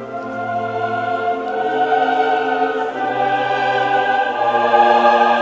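Slow classical choral music: voices hold long sustained chords that change every second or two, swelling louder.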